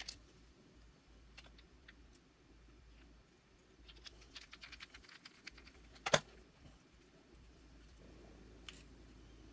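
Faint small clicks and taps of a tiny screw and small parts being handled during reassembly, with a quick run of clicks about four to five seconds in and one sharper click about six seconds in.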